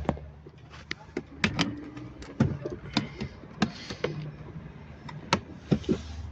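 Flat screwdriver levering a BMW X3 F25 power window switch out of its plastic door trim: a run of irregular sharp plastic clicks and short scrapes over a steady low hum.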